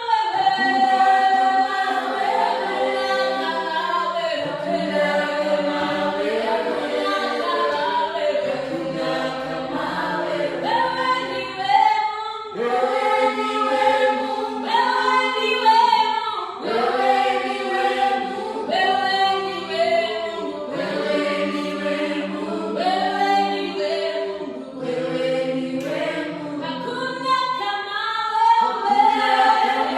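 A church praise team singing together as a choir, several voices in held phrases with no instruments or drums to be heard.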